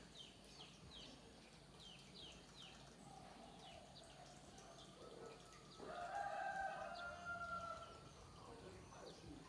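Birds calling: quick high chirps repeating a few times a second, then a louder, longer, lower call lasting about two seconds, starting about six seconds in.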